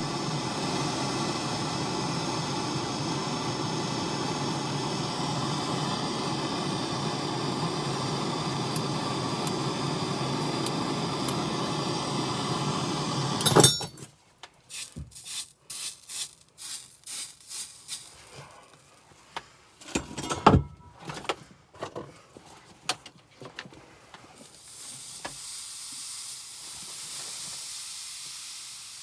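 A steady hiss that stops suddenly with a click after about fourteen seconds, followed by scattered short clicks and knocks and then a faint hiss near the end.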